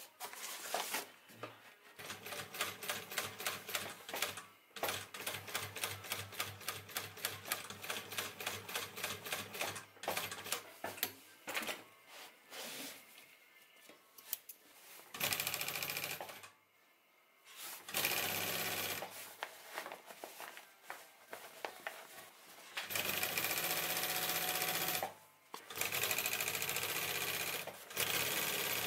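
Industrial flatbed sewing machine stitching canvas bag panels. For the first twelve seconds or so it ticks out separate stitches at an even pace. From about halfway it runs in several short continuous bursts of a second or two each, with pauses between.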